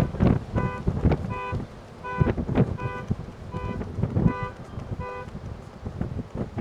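A car horn sounds about seven short, irregularly spaced beeps, as a car alarm does. Gusts of hurricane wind buffet the microphone throughout.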